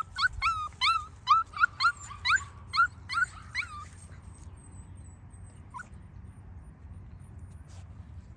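Miniature Schnauzer puppy whining in a quick run of short, high yelps, about three a second, that stops about four seconds in, with one faint whimper a couple of seconds later. It is a frustrated whine from a puppy that cannot get up onto a raised dog bed.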